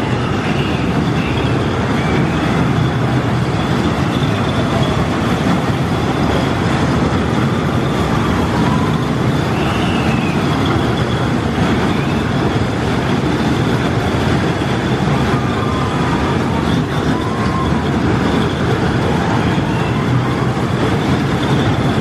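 The Whip amusement ride running, a steady loud rumble of its cars in motion, with a few faint voices over it.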